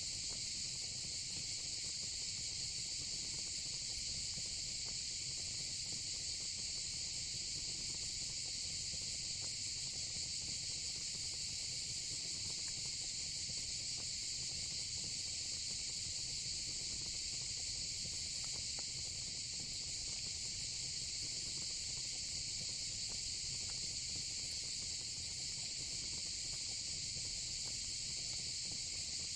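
Steady, unbroken insect chorus with a dense high-pitched trill that never pauses, over a low fire rumble and a few faint crackles from the fire.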